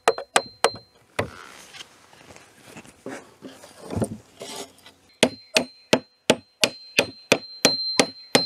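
Steel claw hammer striking a wooden strip held against a floorboard, about three blows a second, each with a short metallic ring. After a few blows there is a pause of softer scraping and handling of wood, then another run of about ten blows. The tight-fitting last board of a traditional Korean wooden floor is being knocked loose and is stuck fast.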